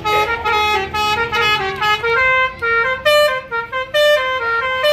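A bus's 'telolet basuri' multi-tone horn playing a quick melody: short horn notes stepping up and down in pitch, one after another, over a low steady rumble.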